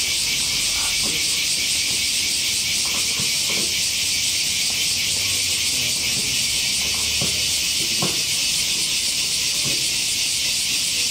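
Loud, steady chorus of summer cicadas: a dense, high, shimmering hiss that does not let up.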